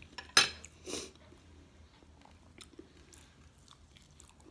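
A person eating close to the microphone: a loud bite about half a second in, a softer one about half a second later, then faint chewing.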